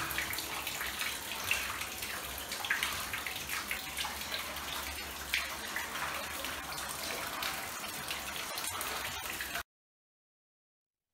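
Water trickling and dripping: a steady splashing haze dotted with many small drops. It cuts off suddenly about nine and a half seconds in.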